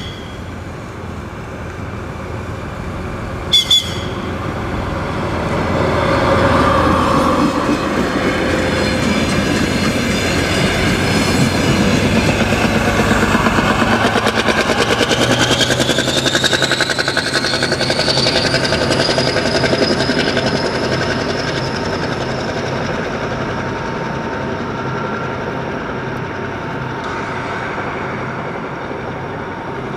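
DR1A diesel multiple unit passing: a short horn toot a few seconds in, then the diesel engine and the rhythmic clatter of wheels over rail joints build loud, with a whine rising in pitch midway, and fade slowly as the train draws away.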